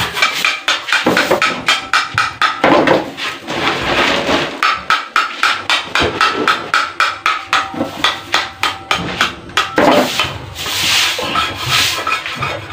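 Wood being worked with a short hand tool: quick, even chopping and scraping strokes, about three a second, with a longer rasping scrape near the end.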